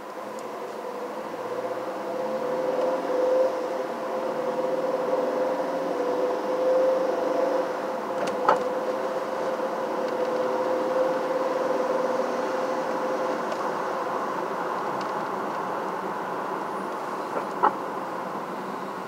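Vehicle driving: a steady engine and road drone that rises in pitch and level over the first few seconds as it gathers speed. Two short sharp clicks, one about halfway and one near the end.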